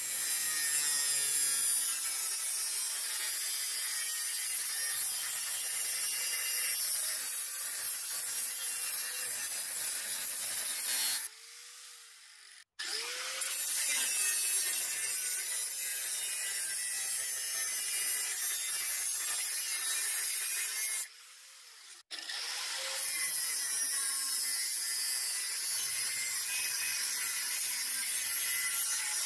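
Angle grinder with a thin abrasive cutoff disc cutting 1/16-inch stainless steel sheet, giving a loud, steady, high-pitched grinding hiss. The cut breaks off twice for about a second, around the middle and again a little later.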